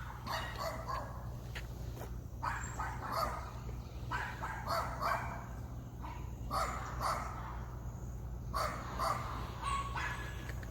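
A dog barking in bursts every couple of seconds, over a steady low hum.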